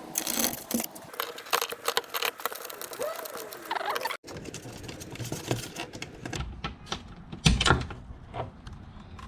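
Hand work on a vehicle door lock: quick small metallic clicks and rattles of tools and lock parts as the old lock cylinder is removed, with one louder knock about seven and a half seconds in.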